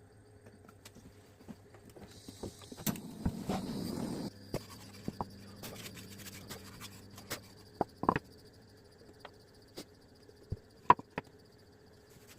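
Scattered light knocks and clicks of workshop handling over a low steady hum, with a brief rushing noise about two to four seconds in.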